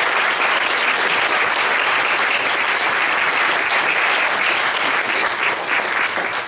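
Audience applauding, many hands clapping in a dense, even patter that dies down at the end.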